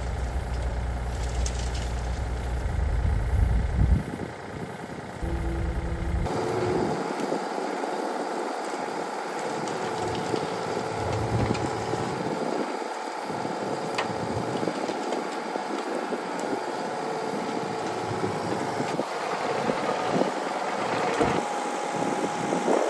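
Yanmar ViO35-6A mini excavator's diesel engine running steadily while it digs a trench. Its deep low rumble drops away about four seconds in.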